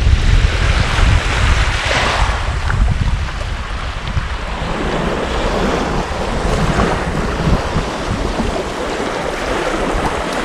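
Wind buffeting the microphone over small waves washing on a sandy shore; the low wind rumble is heaviest in the first few seconds, then eases.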